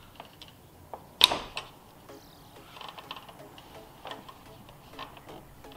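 Metal tool clicks and scrapes as a screwdriver works at a stuck coolant hose on the throttle body, prying it loose from its fitting. Scattered light taps, with one sharp click about a second in.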